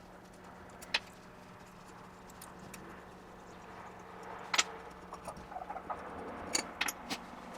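Scattered sharp clicks and knocks of metal parts being handled, about one a few seconds apart at first, then several in quick succession near the end, over a faint steady hum.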